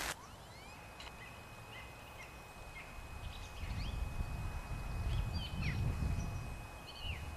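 Small birds chirping: short rising and falling calls scattered throughout, over a faint steady high tone. A low rumble swells in the middle and is the loudest sound.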